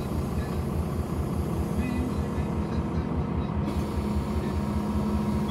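Diesel engine of a Karosa C955 Récréo intercity bus running while the bus drives along, heard from inside the passenger cabin as a steady low drone with a fast, even throb.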